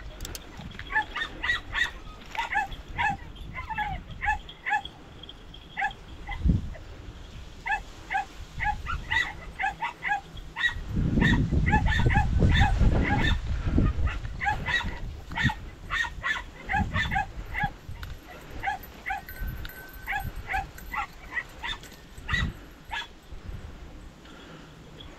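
Podenco hunting hounds yelping, short high-pitched yelps repeated in quick runs, typical of hounds giving tongue while working a rabbit's scent in the reeds. A low rumble on the microphone for a few seconds in the middle.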